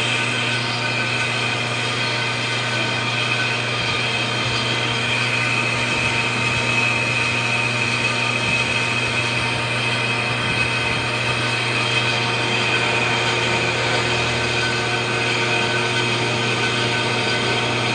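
Metal lathe running steadily as its cutting tool faces the clutch surface of a flywheel, taking down the worn face. A constant hum with a faint high whine from the cut.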